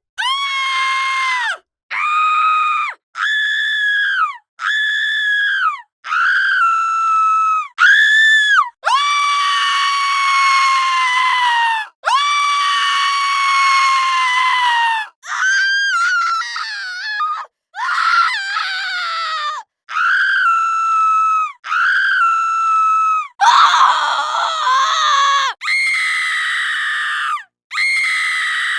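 Women screaming over and over: a long run of high-pitched screams, most a second or two long with short breaks between. A few longer ones are held for about three seconds, and many fall in pitch as they end.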